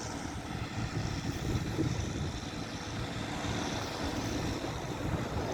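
Combine harvester running steadily, a low noisy rumble with no sharp events.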